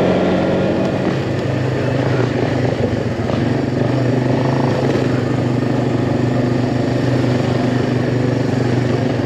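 ATV (quad) engine running steadily under way on a trail, a constant engine drone with the rumble of the ride.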